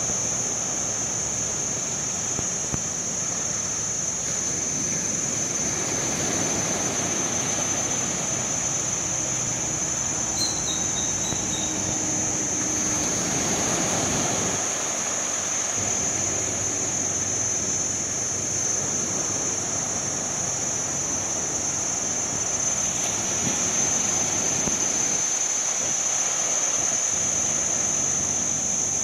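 Sea waves washing onto the shore, the rush swelling and easing every several seconds, over a steady high-pitched whine.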